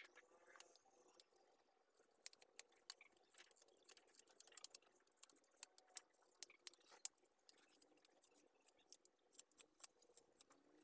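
Knife blade shaving and whittling a wooden sheath piece by hand: faint, irregular scraping clicks.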